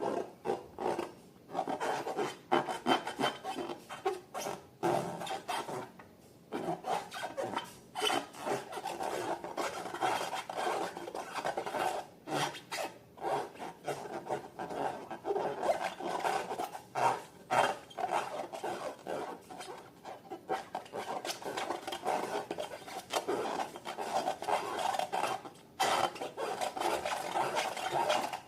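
Slime being worked by hand, a continuous irregular scratchy rubbing with many small clicks and crackles.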